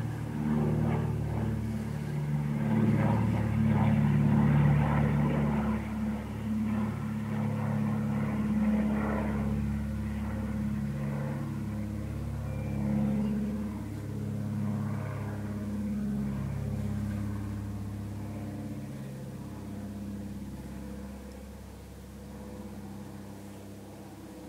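Bees buzzing around flowering marjoram, their low hums coming and going every second or two. Under them is the drone of an airplane passing overhead, loudest in the first half and fading toward the end.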